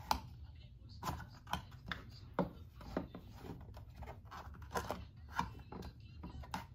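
Small plastic toy pieces clicking and knocking irregularly as they are handled: a Piranha Plant figure being worked into its green plastic pipe on a toy playset, about a dozen light clicks.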